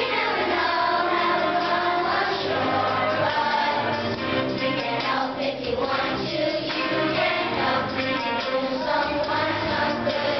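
A third-grade children's choir singing together, with musical accompaniment underneath.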